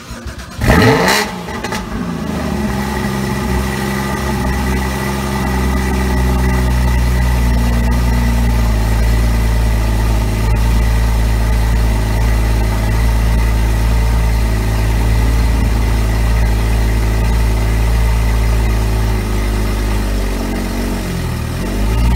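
Porsche Cayman GT4's 3.8-litre flat-six starting with a loud flare of revs about a second in, then settling into a steady idle. Near the end the revs dip and then rise again.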